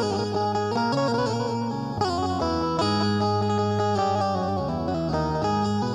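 Indian banjo, the keyed, amplified plucked-string instrument, playing a melody over a steady low backing.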